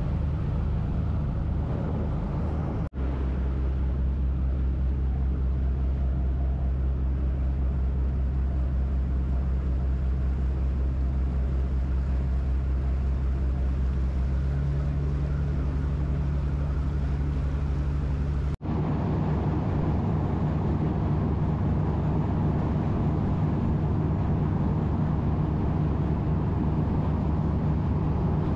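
A party boat's engine running steadily under way, a low drone with water rushing and churning along the hull and in the wake. The sound drops out briefly twice, and the engine's drone shifts after the second break.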